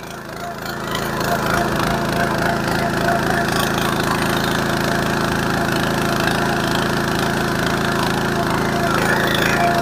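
Single-cylinder 9 HP petrol engine of a walk-behind power weeder running steadily under load as its rotary tines churn dry soil. It grows louder over the first second and then holds an even note.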